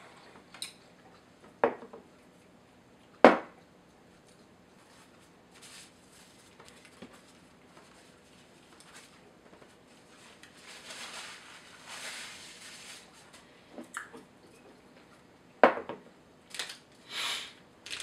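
Small items handled on a table: a few sharp knocks as things are set down, the loudest about three seconds in, and a meal bar's plastic wrapper crinkling in the hands for a few seconds in the middle and again near the end.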